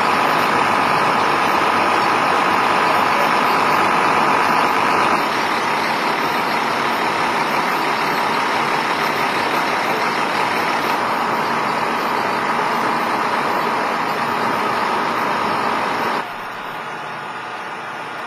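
Fire engine running steadily, its engine revved up to drive the pump that is supplying the hose lines. The noise eases slightly about five seconds in and drops off sharply near the end.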